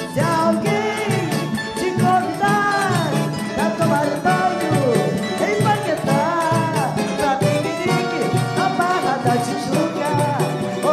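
Live Brazilian carnival marchinha: a woman singing into a microphone over a band of accordion and hand drums, with a steady, lively beat.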